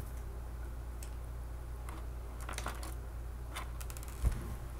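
Small screwdriver working on the screws of a toy RC helicopter's plastic body: faint scattered clicks and ticks, then a low thump a little over four seconds in, over a steady low hum.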